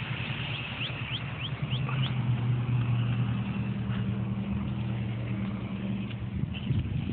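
A vehicle engine running at a steady low hum for about four and a half seconds, starting a couple of seconds in. Short high bird chirps at the start.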